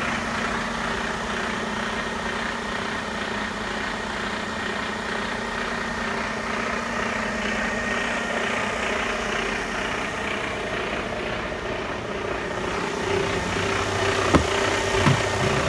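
Mercedes-Benz Arocs 3343 truck's straight-six diesel engine idling steadily, with two sharp knocks near the end.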